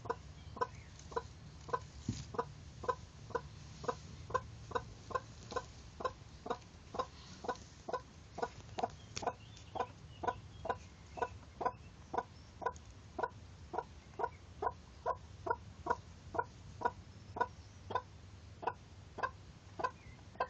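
A hen clucking steadily in an even rhythm, about two short clucks a second.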